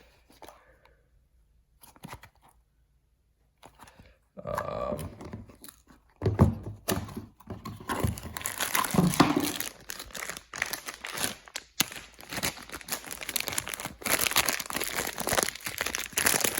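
Packaging being torn open and crinkled by hand, starting about four seconds in and going on steadily.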